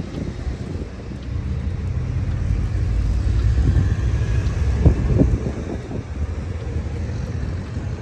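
Wind buffeting the microphone: a gusting low rumble that swells and eases, strongest about five seconds in.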